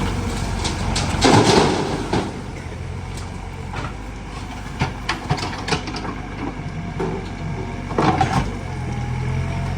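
A heavy diesel machine engine running steadily, with a loud scraping, crashing noise about a second in and again near the end, and a few short knocks between them.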